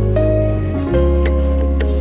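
Background music: sustained melodic notes over a strong bass, the chord changing about halfway through and again about a second in.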